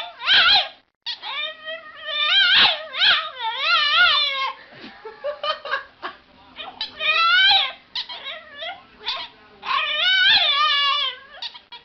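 A domestic animal giving a series of loud, long cries with a wavering, wobbling pitch, one after another with short breaks.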